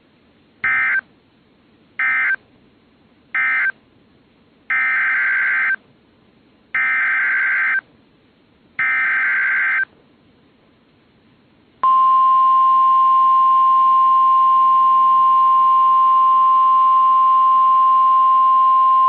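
Emergency Alert System SAME data bursts on NOAA Weather Radio: three short buzzy bursts mark the end of one message, then three one-second header bursts start the next. About twelve seconds in, the steady 1050 Hz weather radio warning alarm tone begins.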